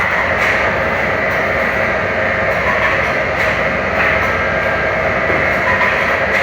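Band saw blade sharpening grinder running steadily, its wheel grinding the saw teeth, with faint clicks recurring every second or so as the blade is worked tooth by tooth.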